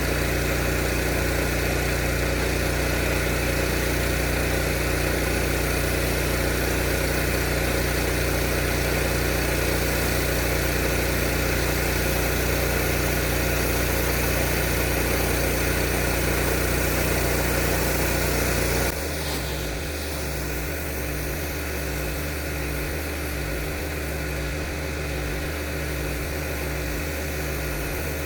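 Gas engine of a pressure washer running steadily under a constant hiss. About two-thirds of the way through, the sound abruptly drops in level and changes character.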